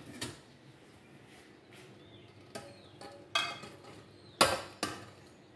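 Metal spoon and pan clanking and scraping as cooked minced meat is pushed out of the pan onto potatoes in a baking dish. A handful of scattered sharp clanks, the loudest about four and a half seconds in.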